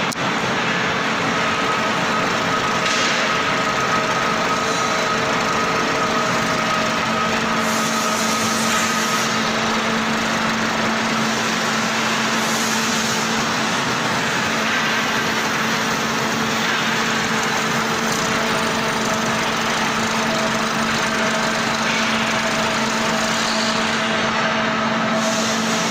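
Explosion-proof electric motor and hydraulic pump of an underground mining crawler excavator running steadily: a constant mechanical hum with a few held tones whose pitches shift slightly as the load changes.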